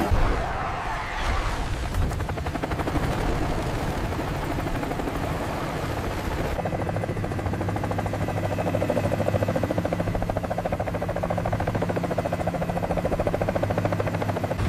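Helicopter rotor chopping in a fast steady beat over a low engine hum, in an AI-generated film soundtrack. It opens with a sudden hit, changes abruptly about six and a half seconds in, and grows louder after that.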